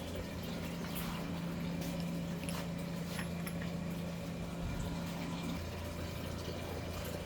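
Antifreeze draining out of a truck radiator and trickling into a bucket. A steady low hum stops about five and a half seconds in, and a few faint clicks come through.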